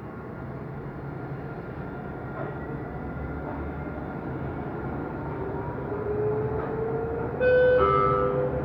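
Dubai Tram running, with rolling noise and an electric motor whine that rises slowly in pitch as it gathers speed. Near the end, a loud two-note falling chime from the onboard public-address system, the signal before a station announcement.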